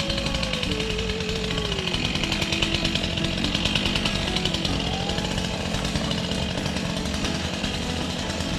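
A small engine running steadily with a dense, even rattle, and a thin wavering tone over it for the first two seconds.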